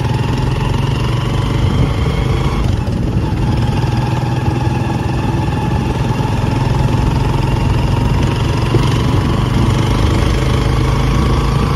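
Small motorcycle engine of a Philippine tricycle running steadily.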